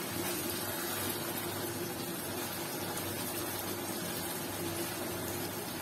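Thick fish curry bubbling steadily in oil in a frying pan on a gas burner as it is stirred gently with a plastic spatula. The water has cooked off and the oil has separated, the frying-down stage of a bhuna.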